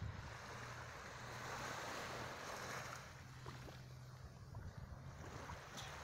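Small waves lapping and washing up onto a sandy beach, with wind on the microphone and a faint steady low hum underneath.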